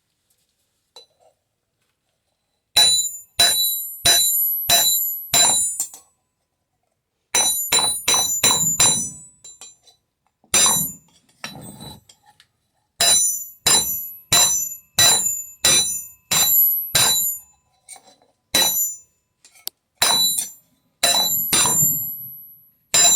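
Hand-forging glowing hot metal: a hammer strikes it about two dozen times. The blows come in runs at about two a second with short pauses between, each with a bright metallic ring.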